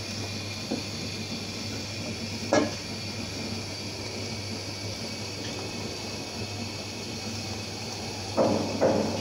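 Steady hiss of a stove burner under an aluminium pot of heating oil. There is one sharp knock about two and a half seconds in, and a run of quick knocks near the end.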